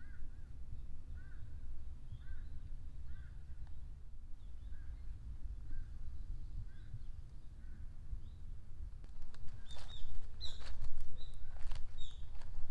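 Small birds calling in woodland, short repeated chirps a little under a second apart, over a steady low rumble. From about nine seconds in, the calls get higher and louder, mixed with a run of sharp clicks.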